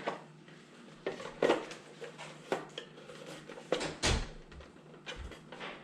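Hard plastic parts of a bird feeder knocking and clacking together as the roof is fitted on, about six sharp knocks, the loudest about a second and a half in.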